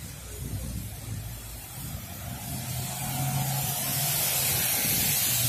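A car driving by on a wet road: a low engine hum and the hiss of tyres on wet tarmac, getting louder from about two seconds in.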